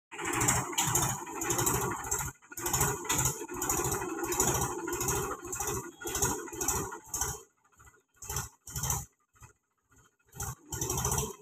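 Mahindra tractor's diesel engine chugging under load as it pulls a trolley through deep mud. The sound breaks up into short bursts over the last few seconds.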